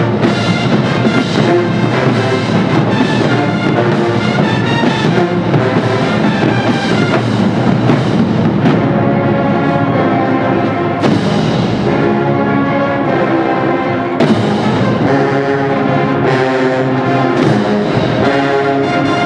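College marching band playing: a full brass section with trombones and trumpets over drums, the brass holding longer sustained chords in the second half, with a sharp new attack about 14 seconds in.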